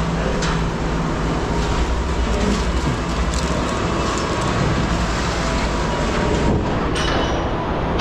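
Steady, loud mechanical rumble of scrap-yard machinery, with a few short metallic clinks of scrap being handled.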